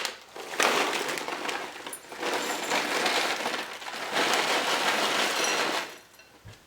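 Dry Chex peanut butter cereal being poured into a bowl: a steady rattling patter of small pieces, in two stretches, that stops about six seconds in.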